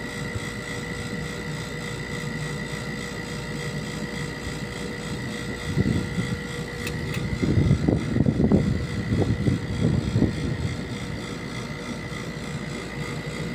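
Steady hum of running air-conditioning machinery, with a high steady tone and a lower one that drops out near the end. Irregular gusts of wind rumble on the microphone from about six to eleven seconds in.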